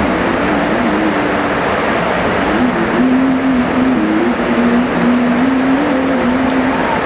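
Heavy rain falling steadily as a dense, even hiss, with a low wavering hum running underneath that fades out near the end.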